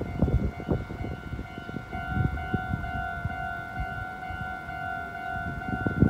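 Japanese railway level-crossing alarm ringing its electronic 'kan-kan' bell, a steady repeated ding about twice a second, with low rumbling and knocks underneath.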